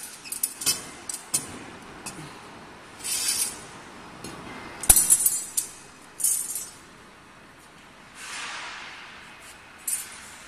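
Straightened and cut steel rods clinking and knocking against each other as the bundle is handled, with a loud clatter of the rods set down on the concrete floor about five seconds in, then a few lighter metal clicks.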